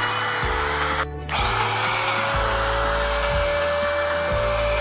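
Handheld trim router running, its motor whining steadily while the bit cuts fibrous coconut wood with a hiss. About a second in the sound drops out briefly, then the whine climbs back up to a steady pitch. Background music with a bass line plays underneath.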